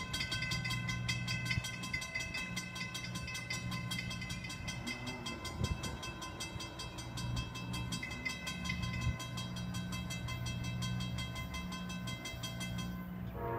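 Amtrak passenger train approaching from far off, heard as a steady, rapid ringing tick. About 13 seconds in, the locomotive's air horn starts to sound faintly.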